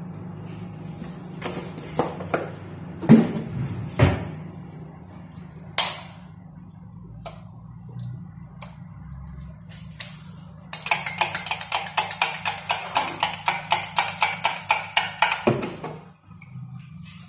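A metal utensil stirring fast in a steel tumbler, clinking against the sides about four to five times a second for several seconds in the second half, after a few single taps earlier. A steady low hum runs underneath.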